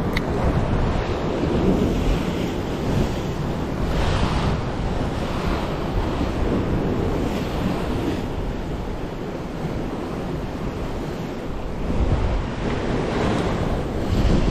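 Sea surf washing against a rocky shore in repeated swells, with wind buffeting the microphone.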